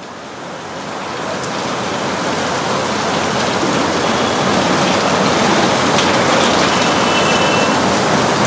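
Heavy monsoon downpour on a street: a dense, steady hiss of rain that grows louder over the first second or two.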